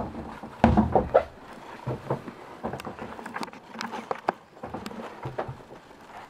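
Irregular knocks, thumps and clicks of someone moving about inside a small sailboat cabin, with the loudest few thumps about a second in.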